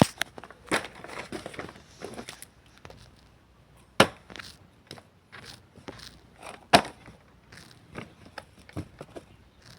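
Hands handling and squeezing a squishy toy close to the microphone: crackly rustling for the first couple of seconds, then scattered light clicks and taps, with two sharp ones about four and seven seconds in.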